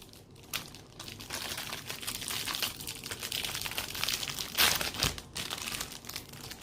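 Plastic-wrapped microwave popcorn bag crinkling as it is handled, in irregular rustles with a louder crackle a little over four and a half seconds in.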